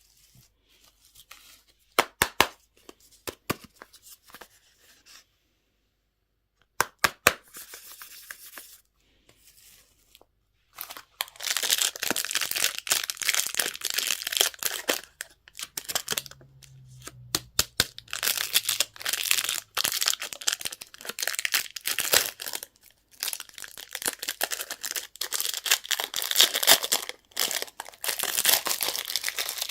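Packaging being handled, opened and torn: a few sharp clicks at first, then from about a third of the way in long, irregular stretches of crinkling and tearing of wrappers.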